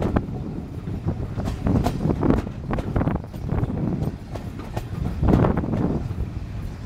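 A steam-hauled train running along the track, heard from an open carriage window: the coaches rumble steadily with an uneven clatter from the wheels, and wind blows on the microphone.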